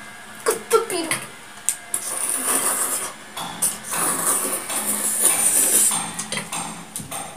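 Chopsticks clicking and scraping against a stainless steel bowl of noodles, with stretches of hissy slurping as the noodles are eaten.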